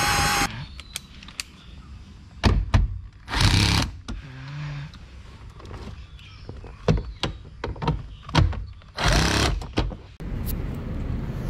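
Bosch cordless drill/driver driving a fastener through a long socket extension, its steady whine cutting off about half a second in. It is followed by scattered knocks and clicks of the tool and fittings being handled, with two short noisy bursts.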